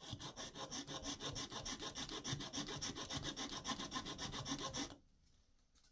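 Flat hand file rasping quickly and evenly across a PVC pipe coupling, taking material off its edge so an SO-239 connector can sit flush. The filing stops about five seconds in.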